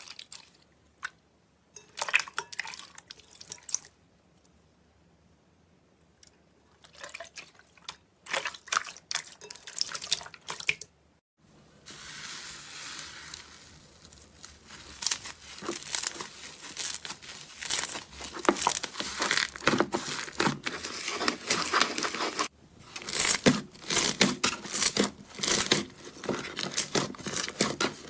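Slime being squeezed and stretched by hand, giving dense crackling and crinkling sounds. It comes in short bursts with pauses at first, then goes on almost without a break over the second half.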